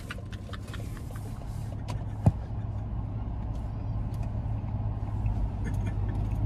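Steady low rumble of a car heard from inside the cabin, engine and road noise while driving, with a few faint ticks and one sharp knock about two seconds in.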